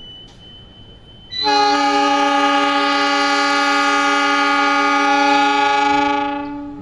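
Diesel locomotive's air horn sounding one long, loud blast of several tones together, lasting about five seconds. It starts abruptly and fades out near the end. It is the train's signal that it is about to depart the station.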